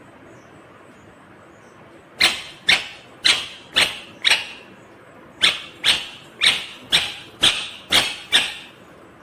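Indian ringneck parakeet calling: a string of short, sharp, loud calls about two a second, starting about two seconds in, five in a row, a brief pause, then seven more.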